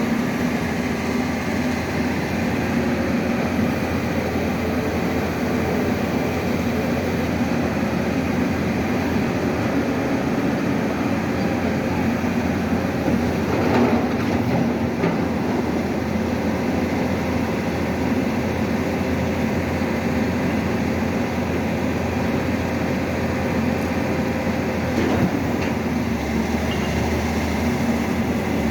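Piling drilling rig running steadily, its heavy diesel engine and hydraulics giving a continuous low drone. Two brief metallic knocks come through, about halfway and again near the end.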